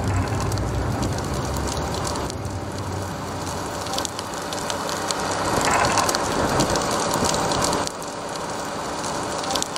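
Fire crackling: a dense scatter of small pops over a steady rushing hiss.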